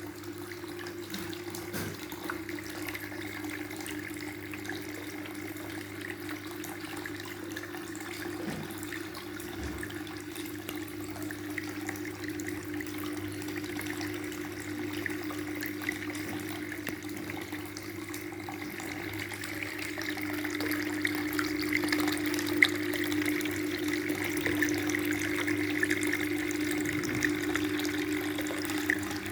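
Water falling and splashing steadily in a small homemade waterfall, with a steady low hum under it; the water grows louder about two-thirds of the way through.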